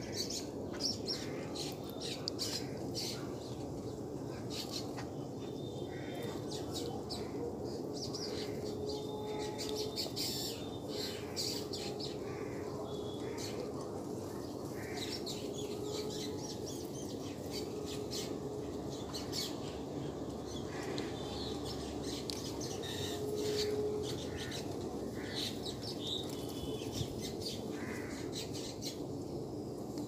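Many short, high-pitched chirps and squeaks keep coming, over a steady background hiss.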